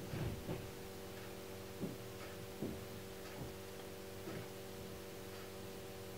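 Low steady electrical hum, with faint soft ticks every second or so.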